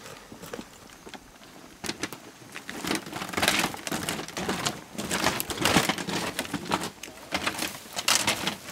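Boots on bamboo stairs and slatted bamboo flooring: a run of crackling, clattering steps and creaks. It is faint at first and grows busier and louder from about two seconds in.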